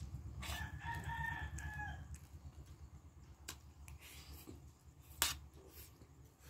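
A rooster crows once, about half a second in: one held call lasting about a second and a half that drops at the end. Spoon and fork click against the plate, the loudest a single sharp click about five seconds in.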